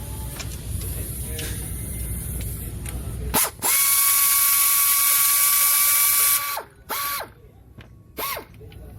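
A small electric power-tool motor spins up and runs for about three seconds with a steady whine, winds down, then gives two short bursts. A low rumble comes before it.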